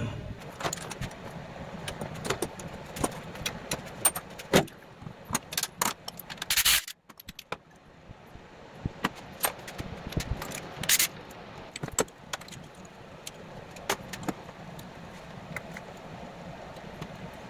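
Metal hand tools and loose engine parts clinking and knocking in an engine bay: an irregular scatter of sharp metallic clicks and taps.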